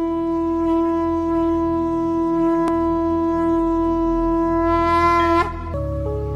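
Conch shell (shankha) blown in one long, steady note that bends upward and breaks off about five seconds in. Music with a low drone and stepped notes starts near the end.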